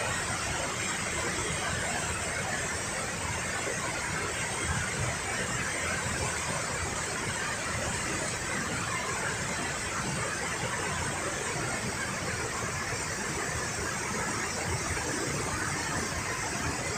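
Steady rushing of a rain-swollen river pouring over a waterfall: an even wash of water noise with no breaks.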